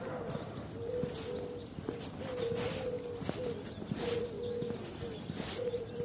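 Metal pivot of an outdoor fitness machine squeaking over and over at a steady pitch as it is swung back and forth.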